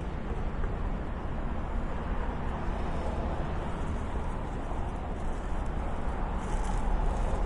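Steady city street ambience: a continuous low rumble of traffic, growing a little louder near the end.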